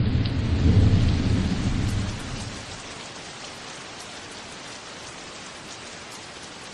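Thunderstorm: a low roll of thunder that fades away over the first two seconds or so, over steady rain.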